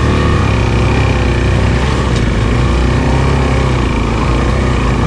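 Motorcycle engine running steadily close by, its pitch wavering slightly, over a steady hiss.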